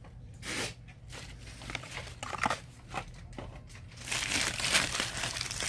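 Crumpled packing paper crinkling and rustling as items are unwrapped by hand: a few short rustles at first, then steadier crinkling from about four seconds in.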